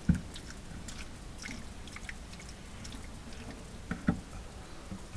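Two dull knocks, one right at the start and one about four seconds in, with scattered light clicks and taps between them: hands and tools handling things against the inside walls of a refrigerator compartment.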